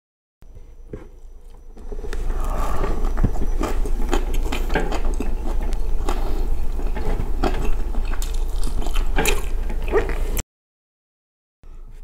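Close-miked wet chewing and mouth smacking as rice and chicken are eaten by hand, with many small clicks. The sound drops to dead silence briefly at the very start and again for about a second near the end.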